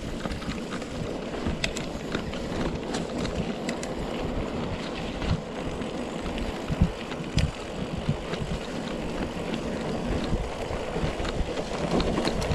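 Wind rushing over a GoPro action camera's microphone on a moving mountain bike, with scattered clicks and knocks from the bike and a louder thump about seven seconds in.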